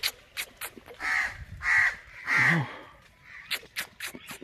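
A crow cawing three times in quick succession, with a few short sharp clicks around the calls.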